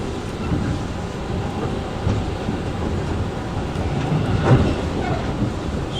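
Commuter train riding along: a steady low rumble of wheels and running gear, with one short louder knock about four and a half seconds in.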